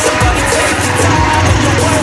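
Background pop music with singing and a steady bass line.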